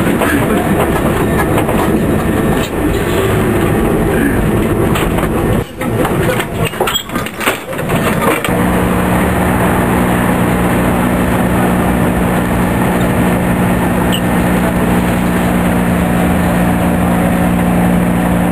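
Lisbon tram running on its rails, heard from aboard as a dense rattling rumble. About six seconds in the sound breaks off in a few abrupt dropouts. After that a steady low hum made of several tones holds under street noise.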